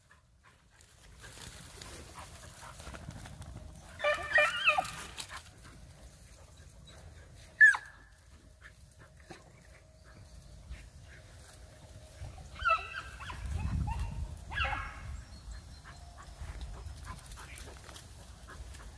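Petit Basset Griffon Vendéen hounds giving tongue while hunting a rabbit: a burst of baying about four seconds in, a single sharp yelp near eight seconds, and two more short bursts of baying later on.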